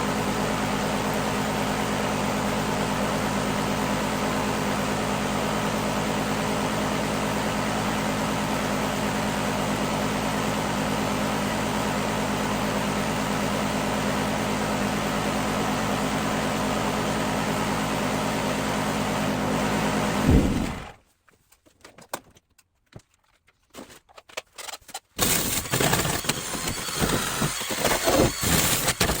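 A power cutting tool running steadily under load, cutting the rusted sheet-steel bottom of a Beetle door, then winding down and stopping about 20 seconds in. After a few seconds of quiet come irregular knocks and handling noises.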